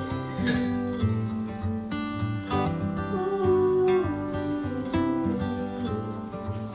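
Background music led by a strummed and plucked acoustic guitar, with a moving melody line over it.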